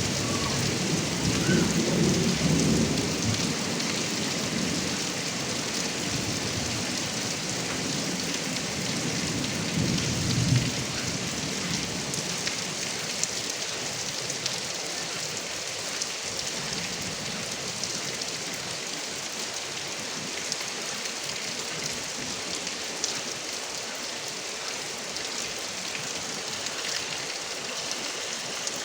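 Heavy rain with water running off a roof gutter spout, steady throughout with scattered drip ticks. Thunder rumbles low over the first ten seconds or so, with a sharper clap near its end, then the storm settles to steady rain.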